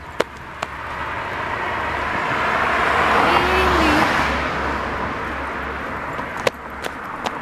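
A car passing by on the street: its road noise swells over a couple of seconds, peaks near the middle, then fades away. Sharp ticks, like footsteps on the pavement, at the start and near the end.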